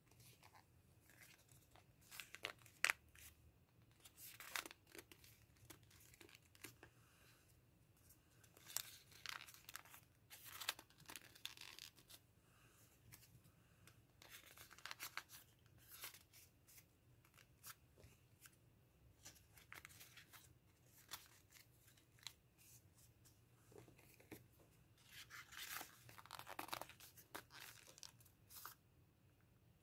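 Faint rustling and crinkling of folded lined notebook paper as origami claw cones are handled and slipped onto the fingers. It comes in short, irregular bursts, with a longer run of rustling near the end.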